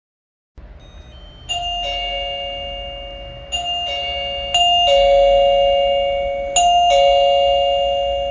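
Wireless doorbell chime playing a two-note ding-dong, a higher note then a lower one, four times over, each note ringing on and fading slowly.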